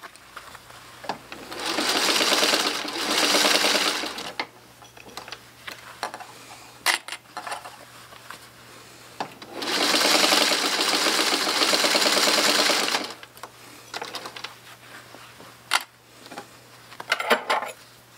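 Singer 301 sewing machine stitching a jeans hem through thick denim, in two runs of a few seconds each, about two seconds in and again near ten seconds. Light clicks and handling of the machine and fabric come between the runs, with a short burst of clicks near the end.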